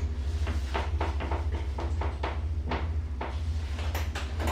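Modernised Evans passenger lift: a steady low hum with faint, scattered knocks and clatter.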